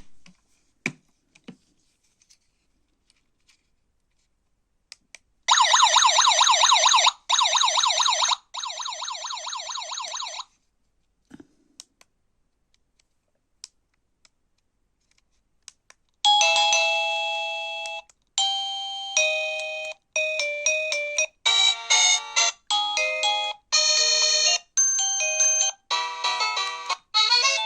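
DENFOON wireless home alarm unit sounding its fast-warbling siren in three bursts, the last one quieter, then playing doorbell chime melodies, one short tune after another, from about halfway in. A few clicks fall in the quiet gaps.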